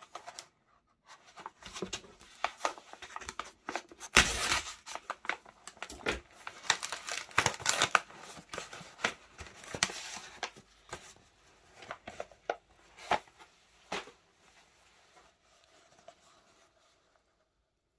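Kraft-paper mailer being crinkled and torn open by hand, with a dense run of rustling and rips and the loudest rip about four seconds in. After about eleven seconds only scattered light taps and scrapes remain as a small cardboard box is handled, dying away near the end.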